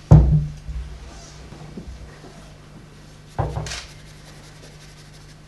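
Two dull, loud thumps about three seconds apart, the first the louder, over a steady low electrical hum.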